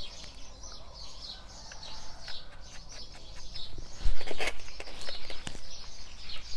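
Small birds chirping over and over, with the rustle and crackle of gloved hands handling potting soil and caladium offsets. A louder thump and rustle comes about four seconds in.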